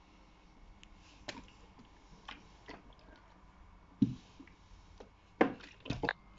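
Russell Hobbs steam iron being worked over fabric on a wooden ironing board: scattered light clicks and knocks, with the loudest knocks near the end as the iron is set down and stood on its heel.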